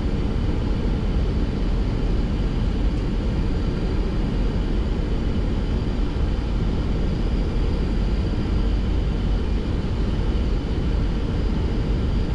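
Boeing 737-800 cockpit noise on final approach: a steady, dense low rumble of airflow and engines, with faint steady high tones above it.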